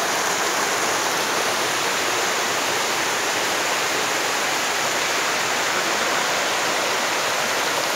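Stream water rushing over rock ledges in small cascades, a steady hiss that does not change.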